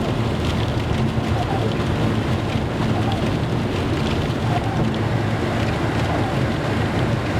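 Steady wind rushing over the microphone in a snowstorm, a constant low rumble with no let-up.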